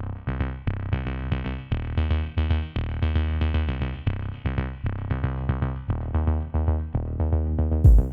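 Background electronic music: a synthesizer tune over a heavy bass line with a steady, pulsing beat. A deep, loud hit lands just before the end.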